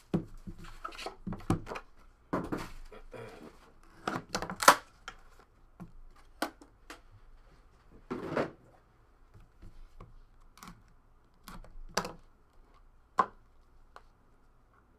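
A trading-card box and its cards being handled on a table: irregular taps, knocks and short rustles of cardboard and card stock, with a sharp click about five seconds in.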